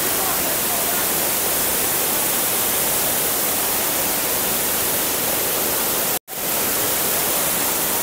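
Steady rushing roar of a tall waterfall, with the water's spray and fall filling all pitches evenly. It cuts out completely for a split second about six seconds in, then resumes unchanged.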